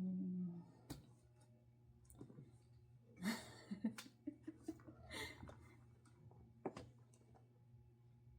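Faint handling noises: scattered light clicks and a few short rustles, spread irregularly through the quiet.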